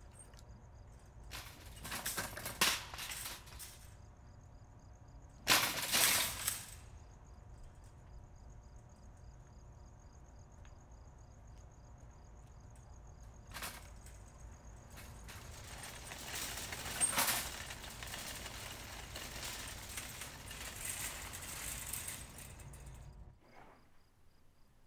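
Night ambience of crickets chirping steadily over a low hum, broken by several loud, noisy bursts: two short ones near the start, a brief one midway, and a longer one that swells and fades. It all drops away shortly before the end.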